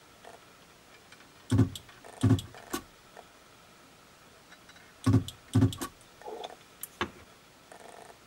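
Battery spot welder firing through a handheld welding pen onto nickel strip on li-ion cells: two pairs of loud, sharp snaps, one pair about a second and a half in and another about five seconds in, with a few lighter clicks of the pen on the metal after them.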